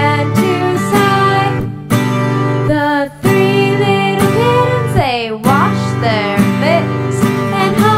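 A woman singing a children's nursery rhyme, accompanying herself on a strummed acoustic guitar. The sound dips briefly about three seconds in.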